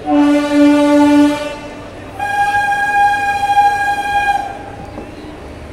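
Train horn sounding two long blasts, the first lower-pitched and the second higher-pitched, as the train pulls out of the station.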